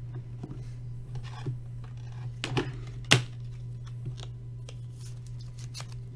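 Trading cards and rigid plastic card holders being handled and shuffled by hand: light scrapes and rustles with small plastic clicks, the sharpest click about three seconds in, over a steady low hum.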